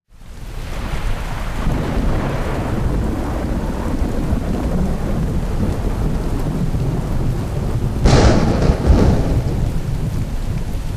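Rain with low rumbling thunder, fading in over the first second, and a sharp, louder thunderclap about eight seconds in.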